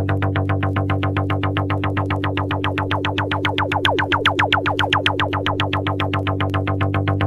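Old-school electronic funk track from a DJ mix, in a stripped-down passage. A quick run of repeated synth notes, about eight a second, plays over a held bass. Around the middle the upper notes bend downward in pitch.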